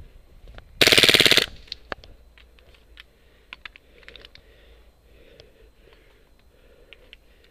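Airsoft rifle firing one short full-auto burst of rapid shots about a second in, loud and close. Faint clicks and rustling of movement follow.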